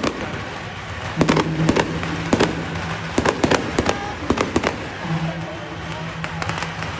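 Firecrackers going off in irregular sharp cracks, thickest in the middle, over a steady low drone.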